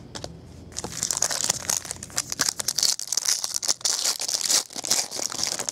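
Clear plastic trading-card pack wrapper crinkling and crackling as it is handled and crumpled by hand. The dense crinkling starts about a second in and keeps on for several seconds.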